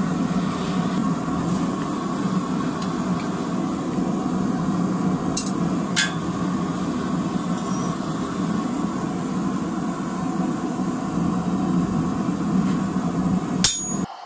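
Forge running with a steady hum and rush. Two sharp metal clinks come about five and six seconds in, and a louder ringing metal strike comes just before the sound cuts off.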